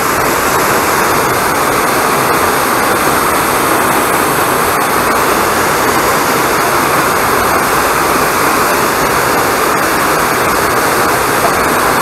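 Waterfall pouring over a rock ledge into a pool, a steady, unbroken rush of falling water.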